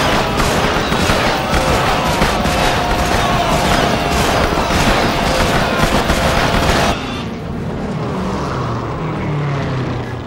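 Battle sound effects: dense rifle fire and explosions. About seven seconds in it cuts off abruptly to a quieter, steady aircraft engine drone.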